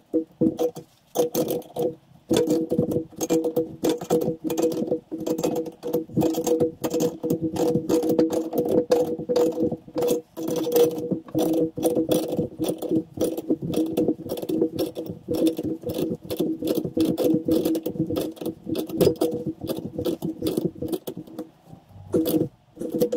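Socket ratchet clicking in rapid strokes as it tightens the nut on a threaded draw bolt, pulling a new bronze bush into a Classic Mini rear radius arm, with a steady hum underneath.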